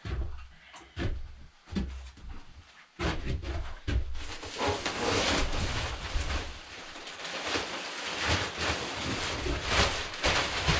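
Pine wood shavings being dumped and spread as coop bedding: a few separate knocks and thumps, then from about three seconds in a steady rustling hiss with scattered crackles.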